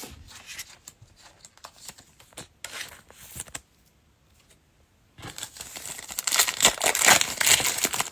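A trading card pack's plastic wrapper being torn open and crinkled, loud and continuous over the last three seconds. Light clicks of cards being handled come before it.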